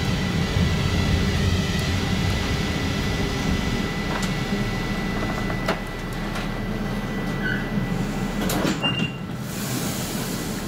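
Stockholm A35 light-rail tram running slowly and braking into a stop, with a low rumble and a faint steady high whine from its drive. There are a few sharp clicks, and a short beep and clunks near the end as it comes to a halt at the platform.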